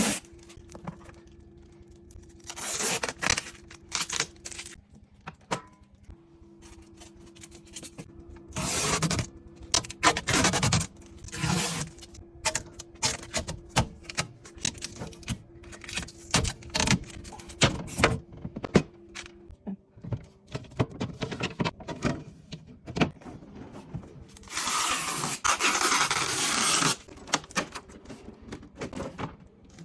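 Protective plastic film and wrapping being peeled and pulled off a new refrigerator, in irregular crinkles, rustles and scrapes, with a longer continuous rustle near the end.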